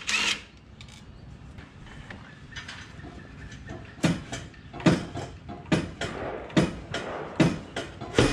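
Stock exhaust piping being knocked loose from the car: light metal clinks, then from about four seconds in a steady run of six sharp knocks, a little under one a second.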